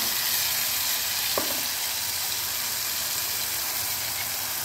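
Tomato purée sizzling steadily in hot oil, with cumin and black mustard seeds that have just crackled, in an aluminium kadai.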